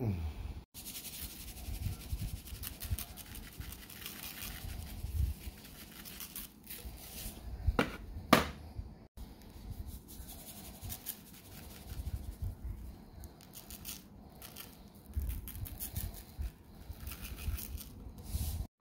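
Handling noise as a raw steak is moved about and seasoned on a cutting board: soft rustling and scraping over a low rumble, with two sharp clicks about eight seconds in.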